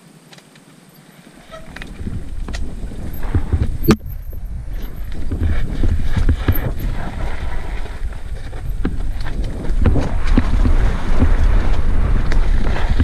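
Mountain bike riding down a loose, dusty dirt trail, picking up about a second and a half in: wind buffeting the microphone and tyres rolling over dirt, with repeated knocks and rattles from the bike over rough ground and one sharp click about four seconds in.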